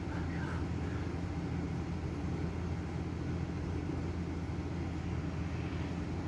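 Tow truck engine running at idle: a steady low hum.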